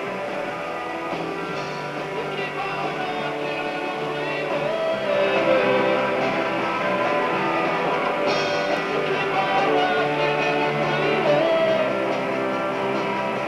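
Live rock band playing a guitar-led passage of a song, without clear vocals.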